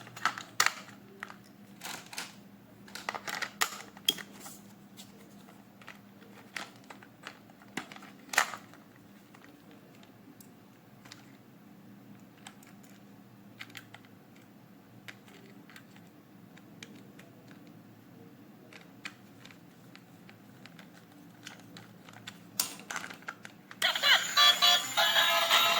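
Scattered light clicks and rustles of toys and their plastic packaging being handled, busiest in the first nine seconds and sparse after that. Music starts about two seconds before the end.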